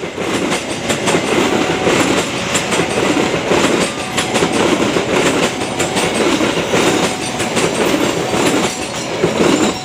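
Pasundan train's economy-class passenger coaches rolling past close by, the wheels clattering over the rail joints in a steady clickety-clack rhythm.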